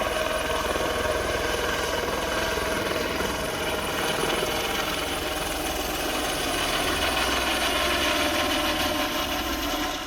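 A loud engine running steadily, a dense mechanical rattle with many steady tones.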